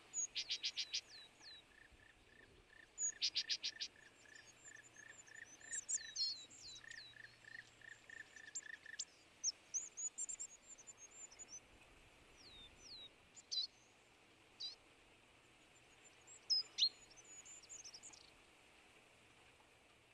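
Several small songbirds calling. Quick bursts of dry chattering notes come at the start and again about three seconds in, over a long run of evenly spaced lower notes during the first nine seconds. Scattered high chirps and short falling whistles follow.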